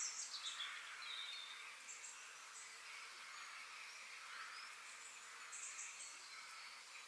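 Forest birds chirping and singing in short high calls, faint over a steady high hiss of insects.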